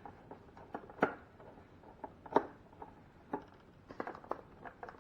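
A screw being driven into the ice maker's plastic mount: scattered clicks and short squeaks as it turns and seats, the sharpest about a second in and again just under two and a half seconds in.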